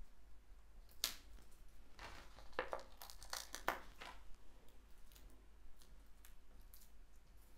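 Small paper and cardstock pieces being handled by hand: a sharp click about a second in, then a run of rustles and light crinkling clicks.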